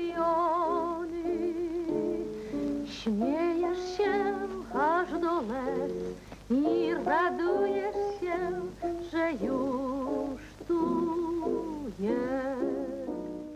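Music: a melody with a wavering vibrato and quick sliding notes over held accompaniment notes, beginning to fade out near the end.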